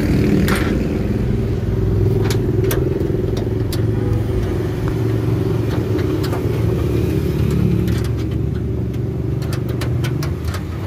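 Vehicle engines in nearby traffic running steadily as a low rumble, with a few sharp metallic clicks scattered through it from a wrench working the bolts of a steel floor panel.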